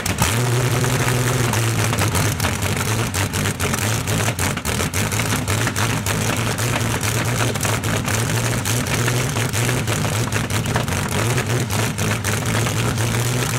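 Rolls-Royce Meteor V12 engine, the tank version of the Merlin, running steadily with a deep even hum and a fast crackle of exhaust pulses. The sound cuts in abruptly at the start.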